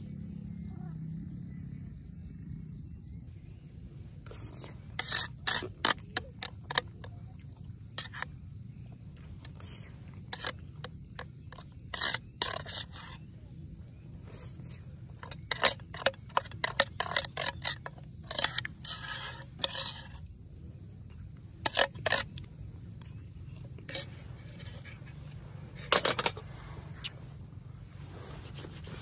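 A series of irregular sharp clicks and knocks, some in quick clusters, over a steady background of insects.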